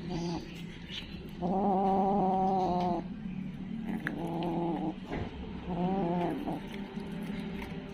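Kitten meowing four times: a short call, then a long drawn-out meow that is the loudest, then two shorter meows, the last one bending in pitch.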